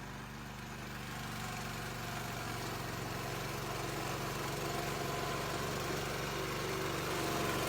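Remote-controlled lawn mower's engine running steadily, slowly growing louder.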